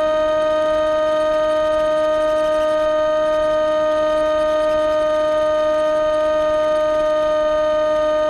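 Electric motor and propeller of an AXN Floater-Jet model plane running at a steady throttle: a constant, unwavering hum with a stack of higher overtones.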